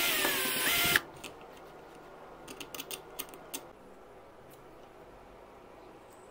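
Cordless drill-driver backing out a screw: its motor whines for about a second with a shifting pitch, then cuts off suddenly. A scatter of light clicks and taps follows over the next few seconds.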